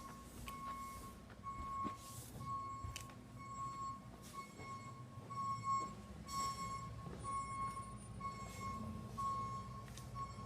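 Electronic beeper sounding a steady run of mid-pitched beeps, each about half a second long with short gaps, roughly three every two seconds. Scattered light knocks sound alongside.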